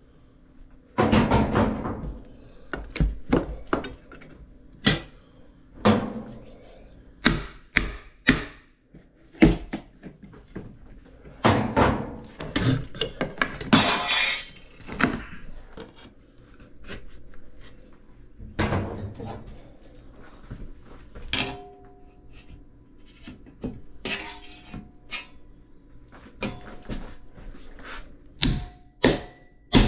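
Hammer striking a flat pry bar to drive it behind wall trim, with the trim molding cracking and tearing loose, a long ripping stretch about twelve to fifteen seconds in. Sharp metal strikes come throughout, and near the end the hammer and bar clang together in quick strikes that ring.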